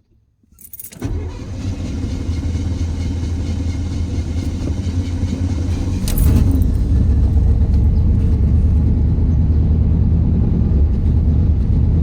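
Car engine being cranked and catching about a second in, then running steadily. Around six seconds in there is a sharp click and the engine runs louder from then on.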